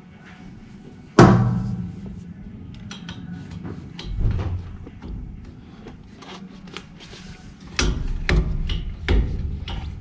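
A sharp metallic clank with a short ring about a second in, then scattered knocks and clicks, several close together near the end: metal parts and tools being handled while fitting control cables under a tractor's dashboard.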